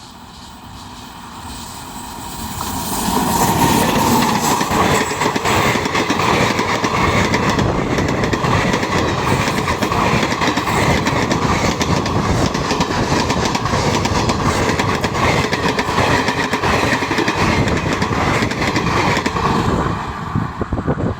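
Train passing at speed, a dense clatter of wheels over the rail joints. It builds over the first three seconds, stays loud, and falls away about twenty seconds in.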